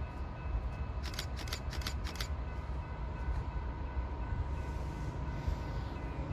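Train running by with a steady low rumble and a steady whine, and a quick run of four sharp clicks about a second in.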